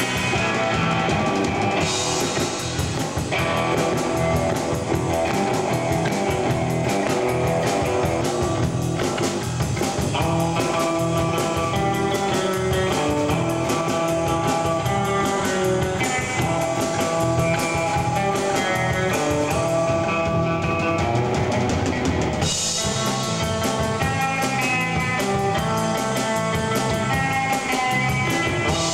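Live rock band playing: electric bass and guitar over a steady drum kit beat.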